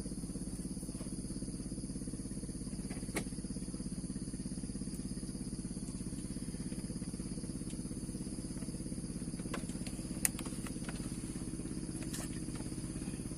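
A small engine running steadily at an even speed, with a couple of sharp ticks about three and ten seconds in.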